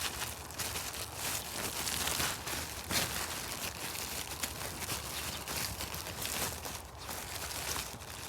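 Bird nest spruce foliage rustling and crinkling as the branches are handled and pushed aside, an uneven run of soft brushing strokes with a slightly sharper crackle about three seconds in.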